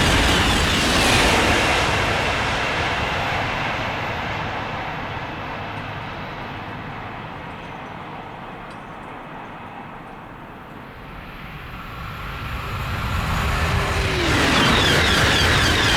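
A TGV high-speed train rushes past at speed and its noise fades away, then another builds up and sweeps past near the end with a drop in pitch.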